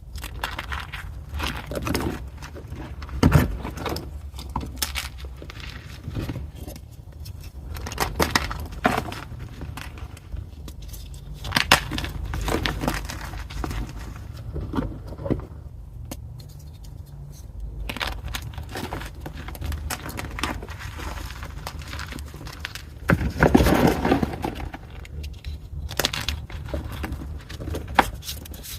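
Pieces of fine gym chalk (magnesium carbonate) being crushed, giving irregular dry crunches and crackles, with a louder, longer crunch about three-quarters of the way through.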